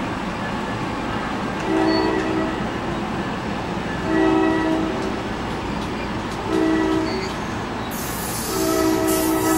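NJ Transit commuter train's multi-tone air horn sounding the grade-crossing signal: two long blasts, a short one, and a final long blast that runs on past the end. A steady rumble from the train lies under the blasts, and a hiss comes in near the end.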